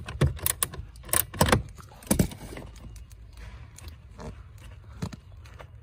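Metal clicks and clinks of a socket tool and small screws while the blower-fan screws under the dashboard are being undone: a quick run of sharp clicks in the first couple of seconds, then faint handling and rustling.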